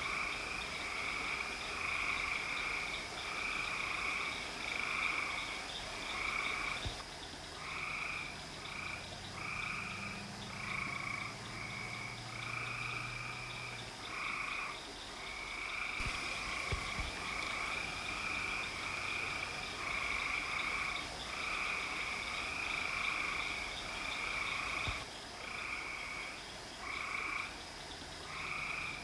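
Frogs calling at night in a chorus: short repeated calls follow one another almost without a break, over a steady faint high tone.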